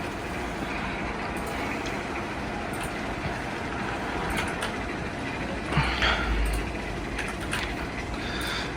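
Minka Aire Supra ceiling fan running, with a steady whoosh of moving air and motor noise. A brief louder bump comes about six seconds in.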